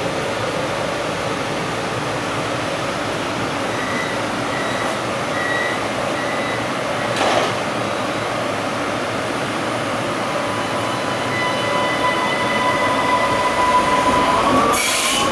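Vienna U-Bahn U1 metro train standing at an underground platform over a steady rumble of station and train noise. A short high beeping comes a few seconds in, and a sharp knock about halfway. In the last few seconds the train's electric traction whine rises in pitch as it starts to pull away, with a brief hiss near the end.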